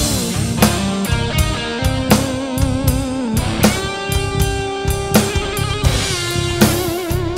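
Rock drumming on a Roland TD-50 electronic drum kit, played live along with the module's pre-programmed rock backing loop. Electric guitar holds long notes that waver and bend over the bass, with steady kick and snare hits underneath.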